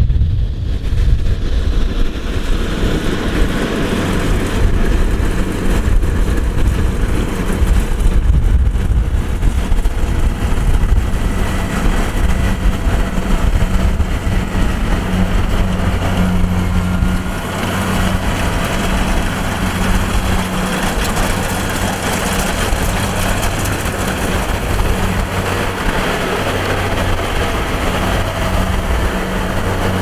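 Kubota DC-70 rice combine harvester working in the field: its diesel engine and threshing machinery run with a steady, loud drone.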